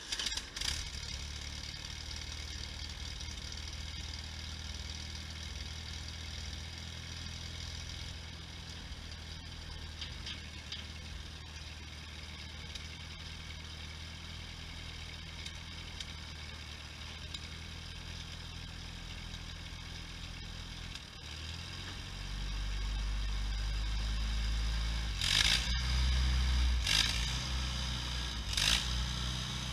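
1955 Allis-Chalmers tractor engine just after starting, idling steadily, then running louder from about two-thirds of the way through as the tractor works; several sharp metallic clanks near the end.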